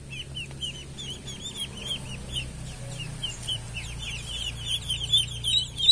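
Several ducklings peeping: a quick, overlapping run of short, high peeps that grows busier near the end, over a low steady hum.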